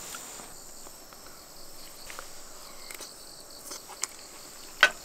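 Crickets chirping steadily in the background at a high pitch, with a few light clicks and one sharp click near the end.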